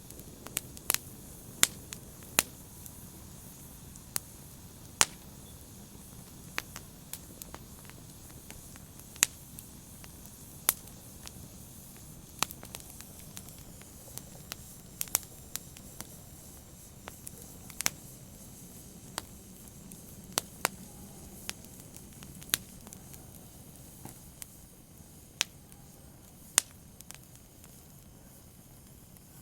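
Open fire crackling: sharp, irregular pops and snaps, at most a couple a second, over a low steady hiss of the flames.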